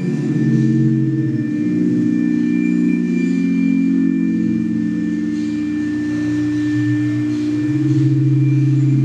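Ambient drone music: several sustained, overlapping low tones that shift every few seconds, with a deeper tone swelling near the end.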